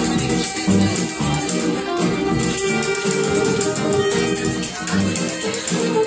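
Live acoustic band music: hand shakers rattling a steady beat over upright bass and guitar.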